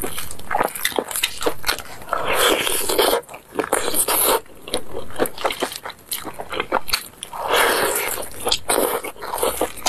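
Close-miked crunching bites into crispy fried chicken, with chewing and many sharp crackles of the batter. Two longer crunching bites come about two seconds in and near eight seconds.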